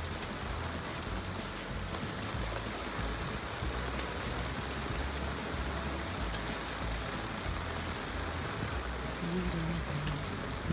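Steady rain falling, with a constant hiss and scattered individual drops hitting close by.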